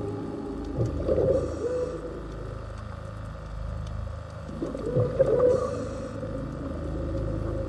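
Instrumental song intro: a low sustained drone with slow, gliding, whale-like tones that come in twice, about a second in and again about five seconds in.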